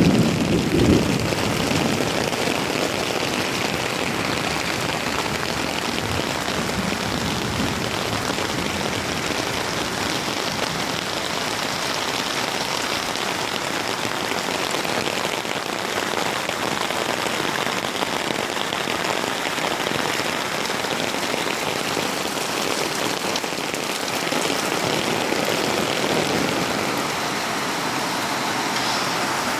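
Heavy rain pouring steadily on the ground and roofs, with the low rumble of thunder dying away in the first second.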